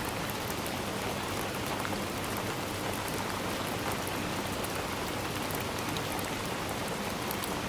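Heavy rain falling steadily on hard surfaces, a dense even patter with scattered drop ticks.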